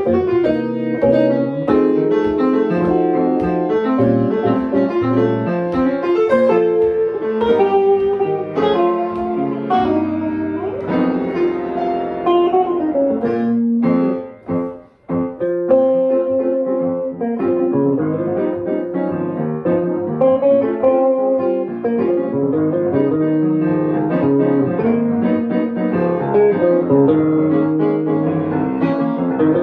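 Guitar and upright piano playing a jazz tune together. About halfway through, both briefly drop out for a short break before the playing picks up again.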